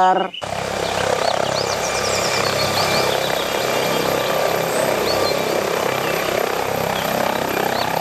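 MD Explorer helicopter with no tail rotor hovering close to the ground: a steady, dense rush of rotor and turbine noise with a faint whine, cutting in about half a second in. Birds chirp faintly over it.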